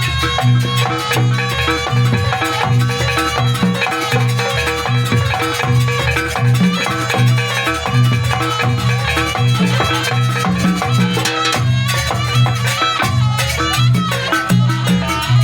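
Live Banyuwangi jaranan gamelan music playing a fast, loud sampak piece: drums keep a steady driving beat under ringing metallophones and gongs.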